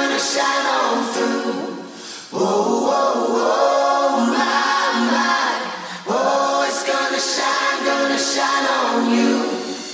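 Unaccompanied choir singing a cappella, in phrases with brief breaks about two and six seconds in.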